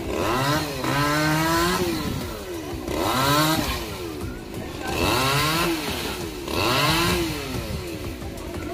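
Two-stroke chainsaw revved up and let back down about four times, roughly every two seconds, dropping to a steadier lower speed near the end.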